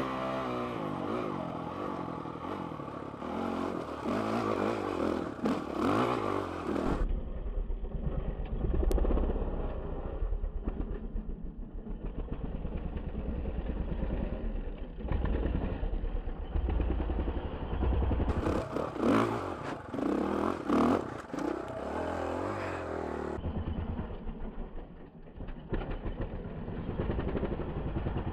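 Dirt bike engine revving up and down over and over as it is ridden over rough rock.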